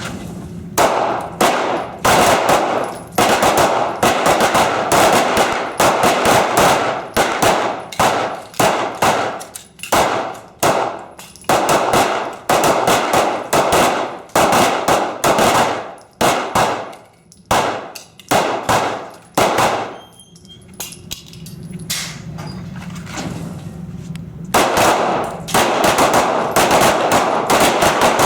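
Many pistols firing at once along a firing line: rapid, overlapping shots, thinning out for a few seconds after about twenty seconds, then rapid again near the end.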